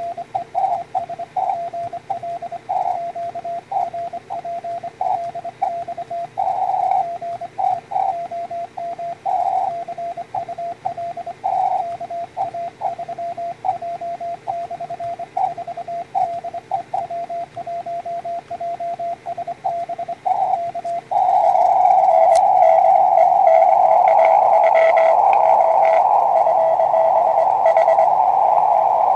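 Morse code (CW) on 20 m from a Small Wonder Labs SW20 QRP transceiver: a single steady tone of about 700 Hz keyed in dots and dashes. About 21 seconds in the keying stops, and a louder, steady hiss of band noise, narrowed by the rig's CW filter, takes over.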